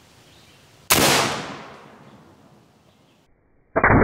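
A single shot from a .72 caliber Zeus pre-charged pneumatic big-bore air rifle about a second in: one loud report that fades over about a second. Near the end a loud, muffled, steady rumble begins.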